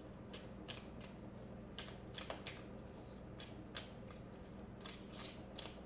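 Tarot deck being shuffled by hand: a run of irregular soft clicks and flicks, about two or three a second, as the cards slap and slide against each other.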